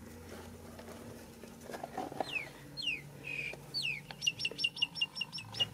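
A bird calling: three high falling whistles, then a quick run of about ten short high notes, over a faint steady low hum.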